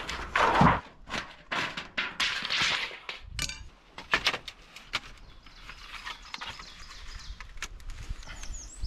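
Sheet-metal flashing handled and wrapped around a wooden post: a run of crinkles, scrapes and light taps of thin metal against wood, with a thump about half a second in. The handling grows fainter and sparser in the second half.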